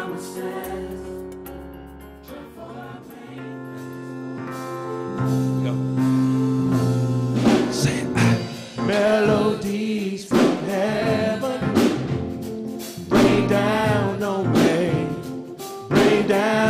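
Gospel praise music. Soft, sustained keyboard chords come first; about halfway through, drums come in and a praise team starts singing over the band.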